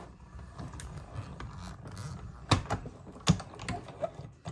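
Die-cutting machine pressing a taped die and card stock through its rollers: a steady low rumble with a few sharp clicks, the loudest about two and a half and three and a quarter seconds in.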